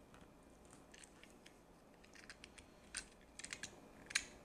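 A few faint, sharp clicks and taps, sparse at first and more frequent in the second half, the loudest about three seconds in and just before the end.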